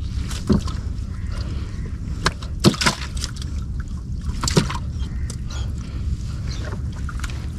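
A gill net full of mullet being hauled by hand into a small canoe: a handful of sharp slaps and knocks from the fish and the net against the hull, over a steady low rumble of wind and water.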